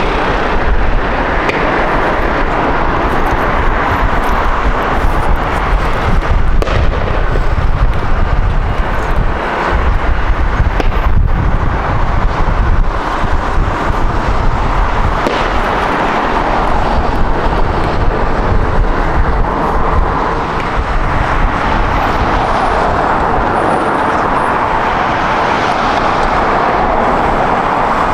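Jet airliner engines heard loud and close: a continuous deep rumble with a rushing roar on top, swelling again near the end.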